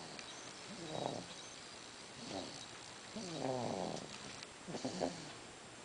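A small animal snoring in its sleep: about five short, whiny snores, each sliding down in pitch, with the longest around the middle.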